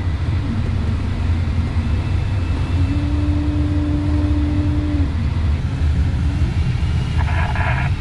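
Steady low rumble of air rushing past a glider's cockpit in flight. A steady low tone sounds for about two seconds midway, fainter tones come and go around it, and a short buzz comes near the end.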